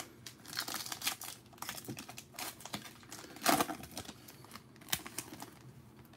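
Foil wrapper of a Panini Prizm football card pack crinkling and crackling in the hands as it is worked open, in quick irregular crackles with one louder one about three and a half seconds in.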